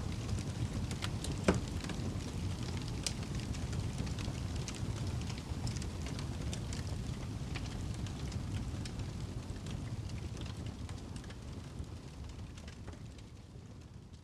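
Wood fire crackling in a fireplace: a steady low rumble of flames with scattered sharp pops, one louder pop about a second and a half in. The sound fades out toward the end.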